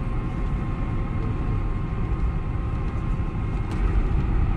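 Cabin noise of a Boeing 747-400 taxiing after landing: a steady low rumble from its four GE CF6-80C2 engines at idle and the airframe rolling on the taxiway, with a faint steady whine above it.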